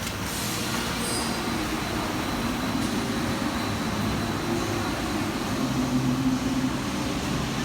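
Rotary milking parlour machinery running: a steady mechanical rumble with a low hum.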